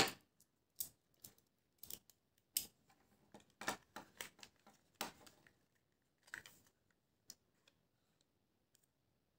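Faint, irregular clicks and light rattles of small pistol parts, about a dozen spread over several seconds with the sharpest right at the start, as the spring and its guide rod are handled and fitted back into the slide of an ASG DL60 SOCOM airsoft spring pistol.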